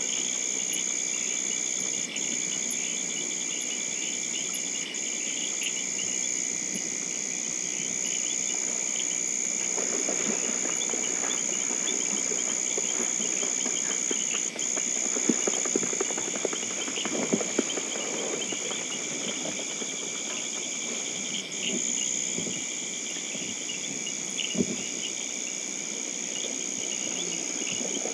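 Steady, high-pitched insect-like trilling throughout, with rustling and a few sharp clicks from about ten seconds in until shortly before the end.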